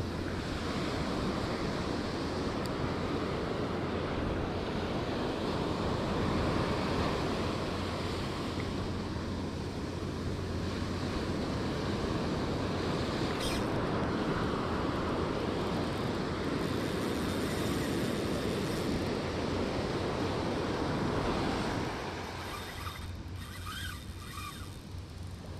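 Ocean surf: waves breaking and foamy wash running up the sand, a steady rush that drops quieter about three-quarters of the way through.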